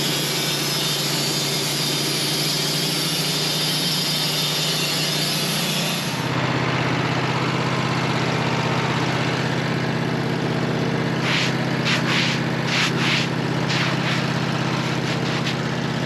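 Engine-driven sawmill cutting through a honey locust log. The high cutting hiss over the engine drops away about six seconds in as the cut ends, leaving the engine running. A few short clacks follow around eleven to thirteen seconds in.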